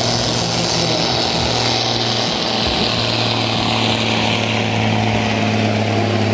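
DAF 95 truck's diesel engine running at full power under heavy load while it drags a truck-pulling sled. It makes a loud, steady drone at an unchanging pitch, with a hiss over it.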